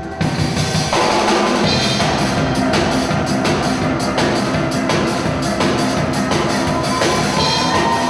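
Steel band playing live: steel pans over a drum kit keeping a steady beat, the full band coming in just after the start.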